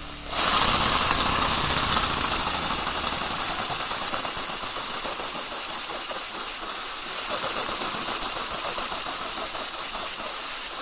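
Kit-built single-cylinder model steam engine starting up about a third of a second in, then running with a steady exhaust hiss that pulses slightly with each stroke.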